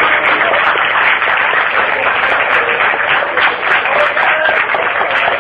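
Loud crowd din of many students talking at once, with no single voice standing out.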